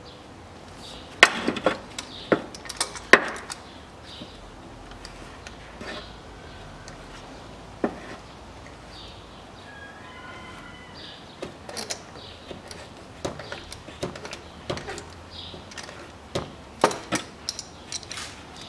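Sharp clicks and knocks of a claw-type oil filter wrench being fitted to and turned on a car's spin-on oil filter. They come in a quick cluster in the first few seconds, a lone knock near the middle, then more through the second half.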